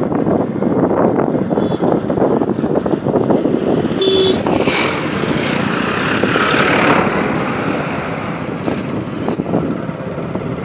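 Wind rushing over the microphone of a moving motorcycle, with road and engine noise. A brief beep about four seconds in, then a tractor's engine close by as it is overtaken.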